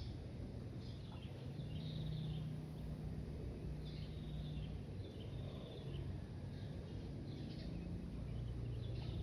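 A bird calls over and over, about five times, each call a short high note running into a brief trill. A steady low rumble sits underneath.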